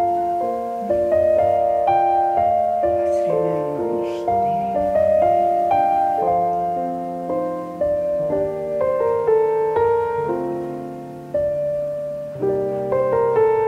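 Background music: a gentle piano melody of soft held notes.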